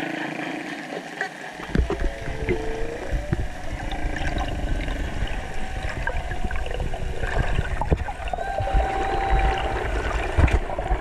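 Spinner dolphins heard underwater: a few wavering whistles in the first half and one held whistle near the end, with scattered clicks. A low rush of water moving over the camera sets in about two seconds in.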